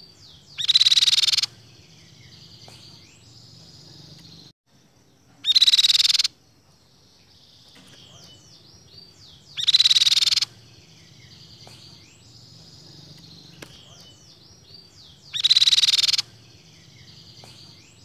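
Crescent-chested babbler calling: four loud bursts of rapid, trilled notes, each under a second, a few seconds apart. Between them fainter chirps of other birds carry on.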